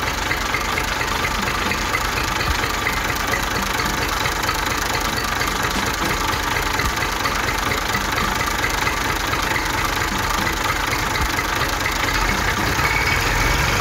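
Engine running steadily, the tractor engine sound of a toy tractor as it pulls on a string to right an overturned cardboard truck.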